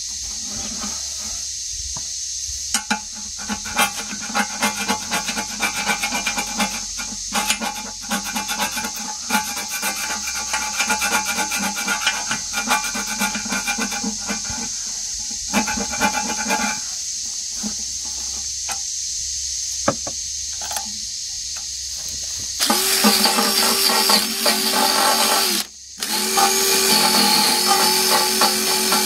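A hand scraper scraping old gunk off the steel around the sight-glass opening of a hydraulic tank in quick repeated strokes. About 23 seconds in, a cordless drill with a wire brush starts up and runs steadily on the same spot, cutting out briefly a few seconds later and starting again.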